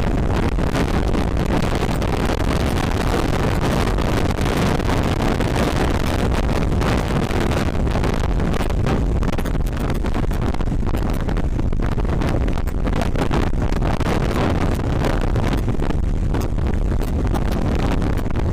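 Wind rushing and buffeting over an action camera's microphone while a Honda CBR150R motorcycle is ridden at speed, its single-cylinder engine running steadily under the wind.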